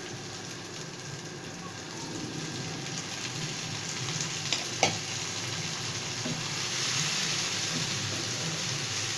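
Onions, ginger-garlic paste and diced tomatoes frying in hot ghee in a non-stick pan, sizzling steadily as they are stirred with a spatula. A sharp tap comes about halfway through, and the sizzle grows a little louder in the second half.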